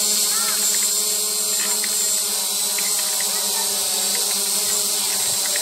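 SJRC F11 quadcopter drone hovering close by: its four brushless motors and propellers give a steady buzz with a high whine.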